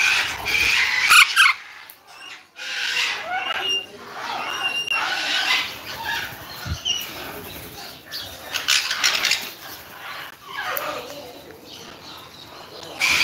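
Aviary birds chirping and squawking in many short calls, some with whistled notes, over rustling noises.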